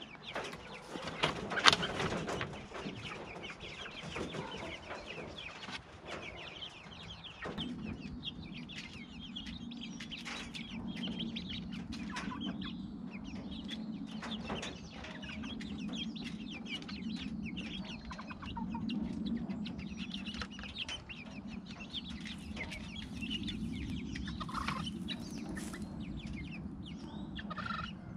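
Flock of young chickens, about eight weeks old, clucking steadily as they come out of a wooden mobile coop. In the first few seconds there are wooden knocks and clatter as the coop's ramp door is lowered, the loudest about two seconds in.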